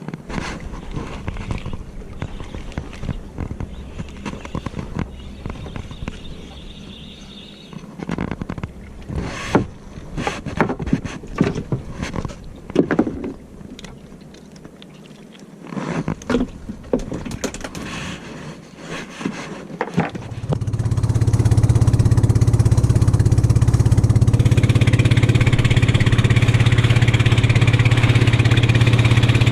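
Irregular knocks and clatter of gear being handled, then an engine starts about two-thirds of the way in and runs steadily at idle.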